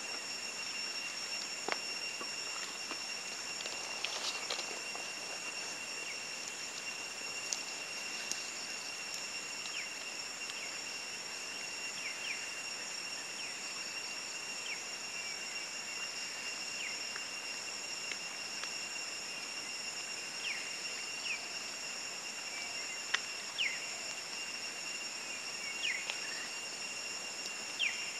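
Steady high-pitched insect drone of several even tones, with scattered short chirps and a few faint clicks over it.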